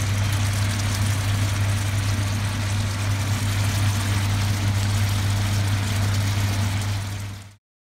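Steady low hum with an even hiss over it from the stove while the crabs cook in the wok, cutting off abruptly near the end.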